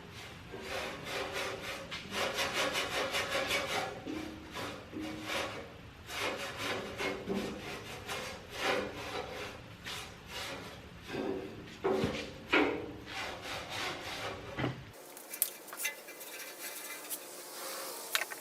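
A brush scrubbing back and forth over the radial arm saw's table, in repeated rubbing strokes. Near the end it gives way to fainter scraping and a few sharp clicks.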